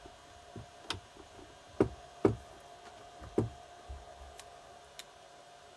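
Irregular knocks and light clicks of metal engine parts being handled: a camshaft and its sprocket being tried into a small motorcycle cylinder head, with the loudest knocks in the middle.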